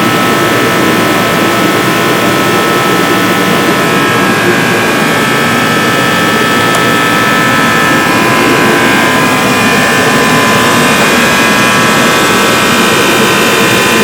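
John Deere AC-70-1 kerosene-fired forced-air portable heater running on #2 diesel fuel: a loud, steady rush from its fan and burner, with a steady high whine running through it.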